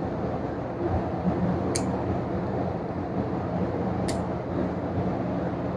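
Steady whir of a fan-type machine running, with two brief faint clicks about two seconds apart.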